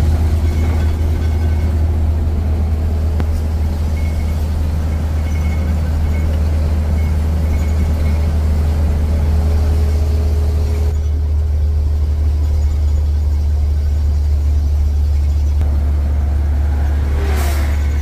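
A vehicle's engine and road noise while driving, a loud steady low drone, with a brief swell of noise near the end.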